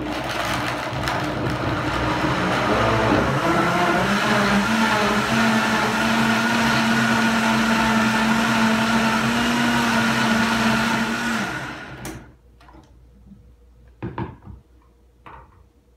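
High-powered countertop blender running for about twelve seconds, crushing frozen fruit with orange juice into a smoothie. Its motor pitch climbs over the first few seconds, then holds steady, then winds down and stops. A couple of light knocks follow as the jar is lifted off the base.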